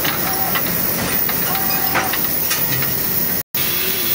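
Steady hiss of air and machinery in a foundry moulding shop around a pneumatic sand ramming machine, with faint clatter. The sound cuts out completely for a split second about three and a half seconds in.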